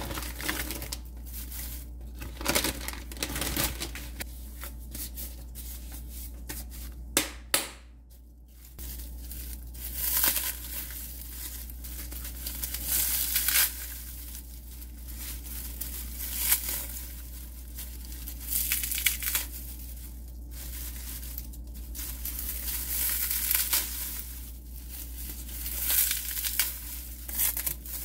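Dried sea lettuce (green laver) being torn and crumpled by hand in a frying pan: dry crinkling and tearing that comes in uneven handfuls every second or two.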